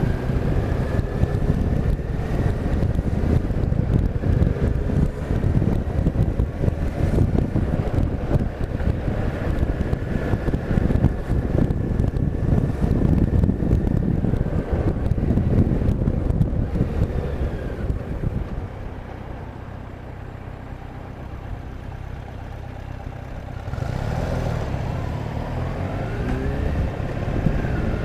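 Motor vehicle running at road speed, engine and wind noise together. Partway through it eases off for a few seconds, then picks up again with the engine pitch rising as it accelerates.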